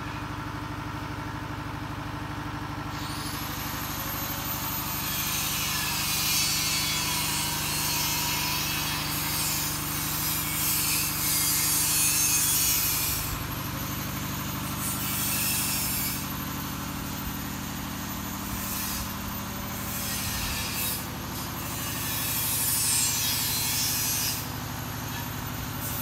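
A steady low mechanical hum, like an engine running, throughout. From about three seconds in, a rushing noise swells and fades in waves over it.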